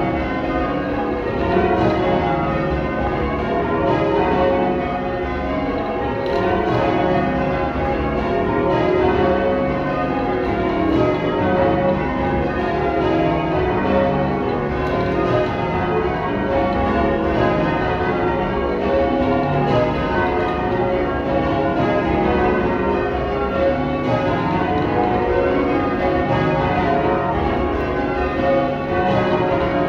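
Change ringing on a ring of twelve church bells, tenor 28-2-16 cwt in C sharp: a steady, unbroken run of bell strokes, one bell after another in changing order, their tones overlapping.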